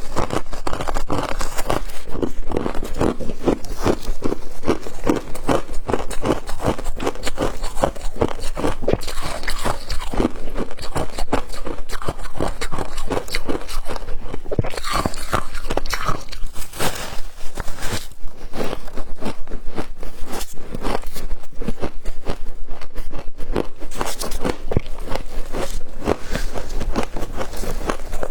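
Close-up crunching of flavoured humidifier frost being bitten and chewed, a rapid unbroken run of crisp crunches.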